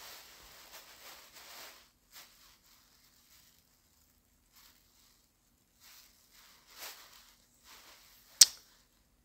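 Faint rustling and handling noises close to a phone's microphone, with one sharp click about eight seconds in.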